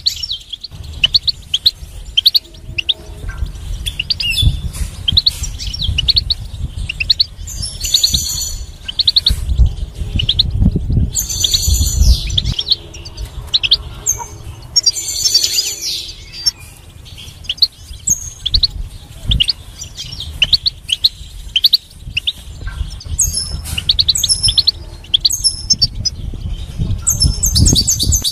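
European goldfinch singing: a fast, unbroken run of twittering chirps, with louder buzzy trills every few seconds, over a low rumble.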